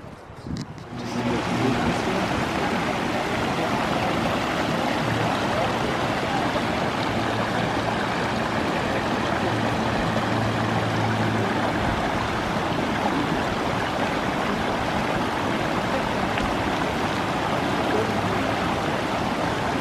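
A stream of running water, a steady rushing and trickling that comes in about a second in and holds evenly.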